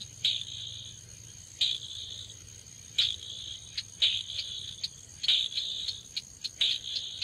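Insects calling in grass: a steady high whine under repeated chirps, each a sharp click trailing into a short rasp, about one every second or so and coming faster near the end.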